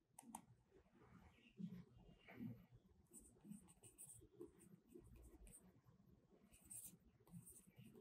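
Faint scratching of a pen writing by hand: a string of short, irregular strokes as a heading is written out.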